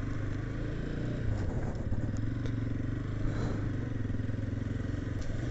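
Motorcycle engine running steadily at low road speed, heard from the rider's position, with a few light clicks and rattles.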